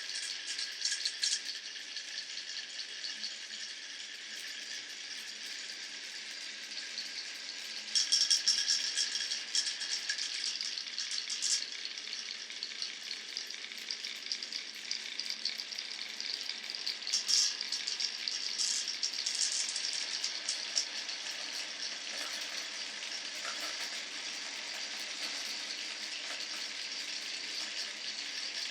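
Glass marbles rolling along a wooden marble run: a steady rolling rattle, with bursts of dense clicking about 8 and 17 seconds in as marbles hit and run over the wooden pieces.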